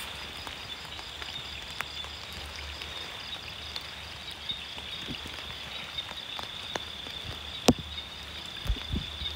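Night chorus of frogs and insects, a continuous high-pitched trill, over a light patter of rain. There is a sharp click about three-quarters of the way through, and a few soft thumps and rustles from someone moving through the undergrowth near the end.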